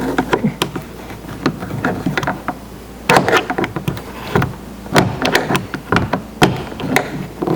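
Small flat-blade screwdriver prying out a plastic trim cover on a car's interior door panel: a run of sharp plastic clicks and taps, with a few short, louder scrapes and knocks in the second half.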